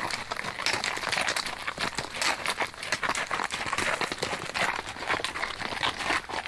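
Horse hooves clopping on a trail while being ridden, in a busy, uneven run of clops.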